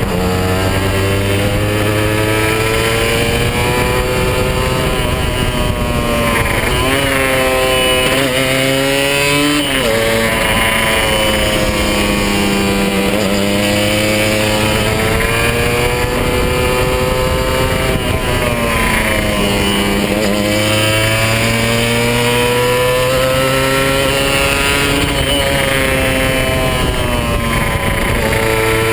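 Kawasaki 150 RR's single-cylinder two-stroke engine, stock and still being run in, running hard under a rider on winding bends. Its pitch climbs as it revs up and drops sharply several times as the throttle is rolled off and gears change.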